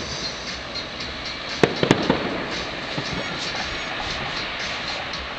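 Fireworks display: aerial shells bursting, with a cluster of sharp bangs about a second and a half in over a steady crackle.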